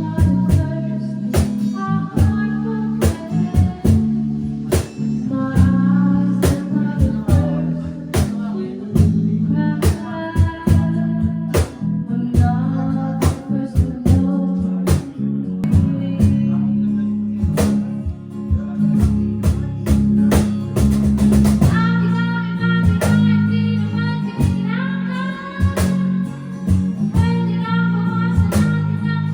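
A rock band playing together: electric guitar and bass over a steady drum-kit beat, with a singer's voice over the top. A quick drum fill comes about two-thirds of the way through.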